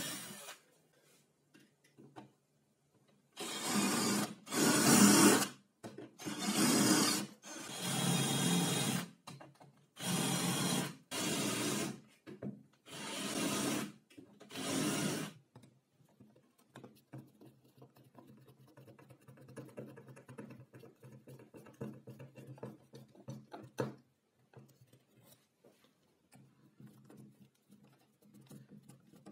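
Power drill drilling into a metal channel set in a wooden tabletop, run in about eight short bursts of a second or less with brief pauses between them. Much quieter after that: a faint low hum and scattered ticks.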